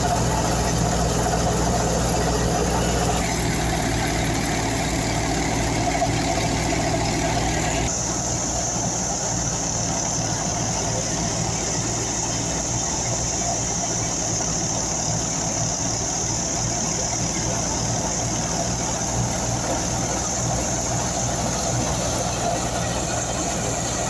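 Tractor-powered wheat thresher running steadily: a continuous engine drone under a rushing hiss. The sound shifts abruptly about three and eight seconds in, the hiss getting brighter after the second change.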